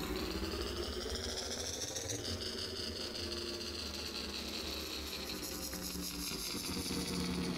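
A motor running with a low rumble and a high whine that rises in pitch, jumps up about two seconds in, then slowly falls.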